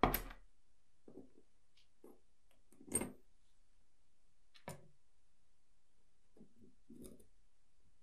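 Steel tweezers picking up and setting down small brass lighter parts on a wooden tabletop. A sharp metallic click comes at the start and another about three seconds in, with a few fainter taps and clinks between.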